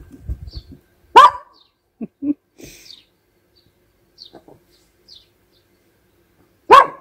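A small terrier barks twice, two sharp single barks about five and a half seconds apart, with faint small sounds between them.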